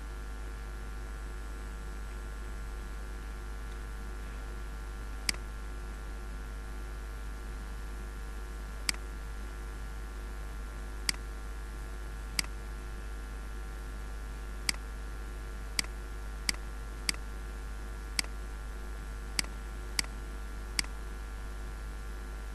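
About a dozen single computer mouse-button clicks, unevenly spaced and starting about five seconds in. They sit over a steady electrical hum and hiss.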